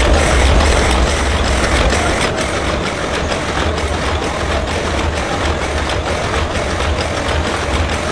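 Matchbox packing machine running: a steady mechanical clatter of many quick clicks over a continuous low motor hum.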